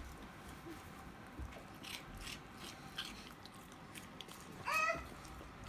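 A Boston Terrier crunching and chewing a dry snack, a few crisp crunches, then a toddler's short high-pitched squeal near the end.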